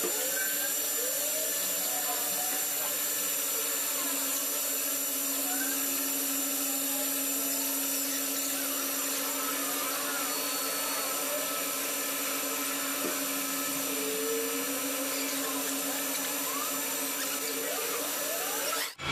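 A manual lathe running while a small twist drill in its chuck bores a hole into a metal chamber sidelever. There is a steady machine hum with a constant low tone and scattered short squeaks as the bit cuts.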